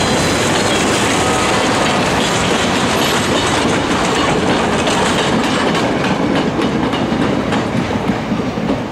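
Railroad cars rolling past close by, steel wheels clattering over the rail joints in a steady run of clicks. The sound eases a little near the end as the last car goes by.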